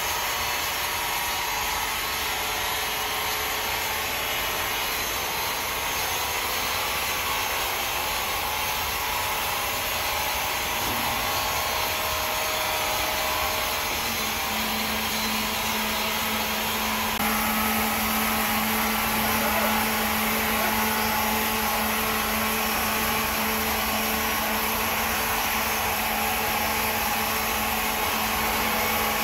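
Powered wood saw running with a steady machine noise. A low steady hum joins about halfway through.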